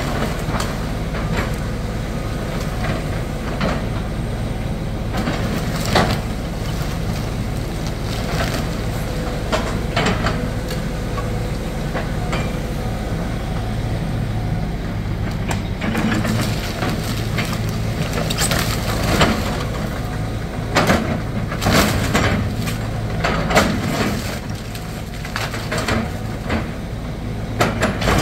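Compact excavator's diesel engine running steadily while its bucket tears apart a wood-frame house, with repeated cracks and crashes of splintering lumber and falling debris. The crashes come in a dense run in the second half.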